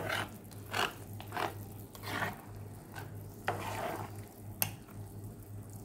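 White spatula stirring and scraping thick simmering chilli sambal in a granite-coated frying pan, in a few separate strokes with one sharp click against the pan about four and a half seconds in.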